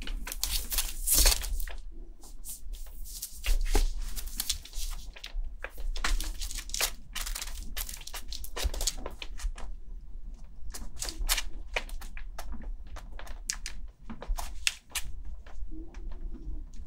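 Newborn kitten suckling from a feeding bottle: irregular wet clicks and smacks at the nipple, with some rustling.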